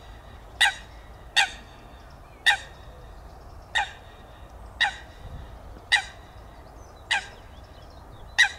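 A bird calling over and over: short, sharp calls repeated about once a second, eight in all.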